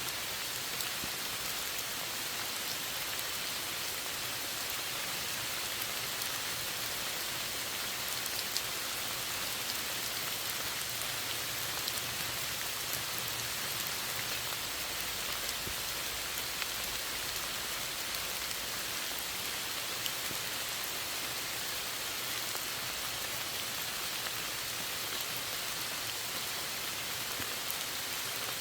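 Steady rain falling, an even hiss with the odd single drop ticking sharply.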